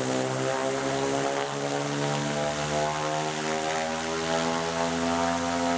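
Electric-motor-driven propeller running steadily on a ground test rig, a steady pitched drone with many overtones.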